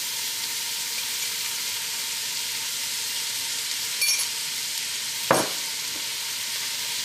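Chopped carrot, celery and capsicum sizzling in melted butter in a stainless steel pot, a steady hiss. A light click about four seconds in and a sharp knock about five seconds in.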